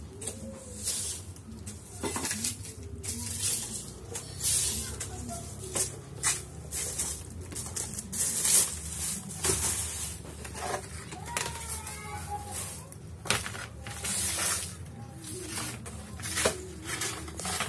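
Broom sweeping a tiled floor in short, irregular swishing strokes, pushing rubbish toward a dustpan.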